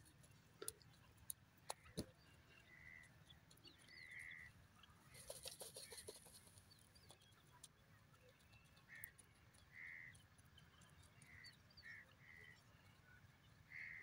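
Faint short call notes of a grey francolin (teetar), repeated irregularly about eight times, with a few sharp clicks in the first two seconds and a brief rustle near the middle.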